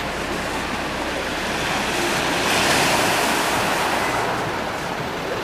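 Sea surf washing against a rocky harbour wall, a wave swelling about halfway through and then easing off.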